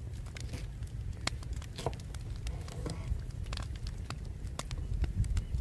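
Large knife slicing a green bell pepper on a wooden slab: a series of irregular clicks as the blade cuts through and knocks on the wood.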